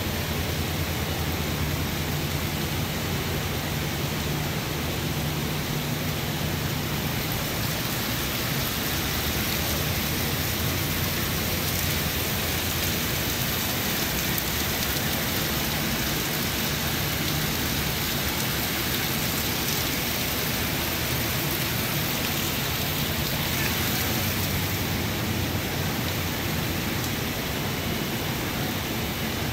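Water pouring and splashing into a koi pond, a steady, even rushing with a low hum beneath it.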